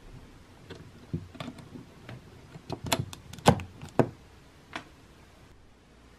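Plastic clicks and knocks of a USB charger plug and its cables being handled and pushed into a power strip, a few sharp clicks loudest about three and a half to four seconds in.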